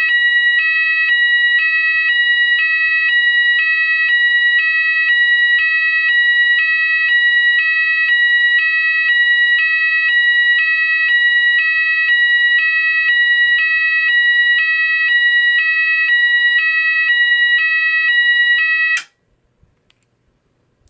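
GE AS363 electronic alarm sounder playing the Apollo fire system evacuation tone: a loud tone alternating between 970 Hz and 630 Hz, switching about once a second. It cuts off abruptly about two seconds before the end.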